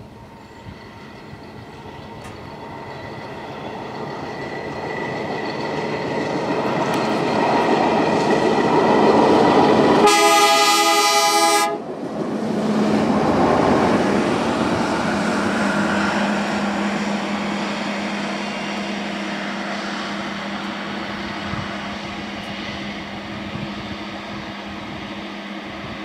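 Self-propelled rail maintenance-of-way machines running on the track, the engine noise building as one comes close and passes beneath. About ten seconds in it gives one short horn blast of under two seconds. Afterward the engine noise fades slowly while a following machine keeps up a steady low drone.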